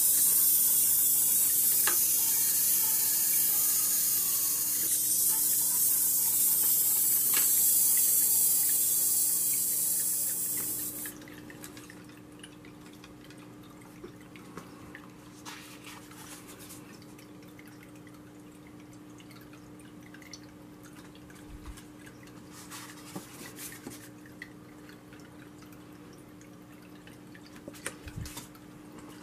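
Water trickling and splashing in a small tabletop fountain with a pebble-filled bowl, loud and steady for about the first eleven seconds, then dropping suddenly to a faint trickle with scattered drips.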